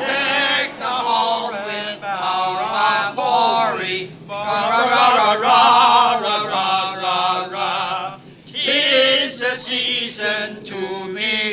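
Voices singing a chant-like tune without instruments, in phrases broken by short pauses about four and eight seconds in.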